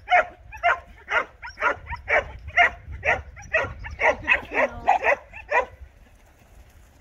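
A dog barking over and over, about two barks a second, quickening a little near the end and stopping about six seconds in.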